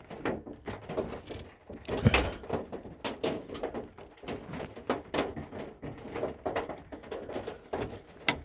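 Hailstones pelting the van's roof and windshield, heard from inside the cab: irregular sharp ticks and knocks several times a second, with one louder knock about two seconds in.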